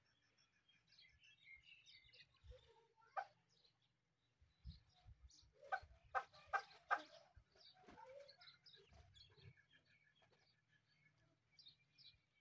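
Chukar partridge calling quietly: a quick run of about five short call notes about six seconds in. Fainter scattered chirps and a rising note come before and after.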